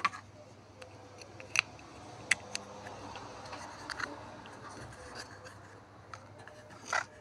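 Small red plastic Happy Meal dragon toy being handled and folded: several sharp plastic clicks and snaps as its parts are moved, the loudest at the very start and near the end, with fingers rubbing on the plastic in between.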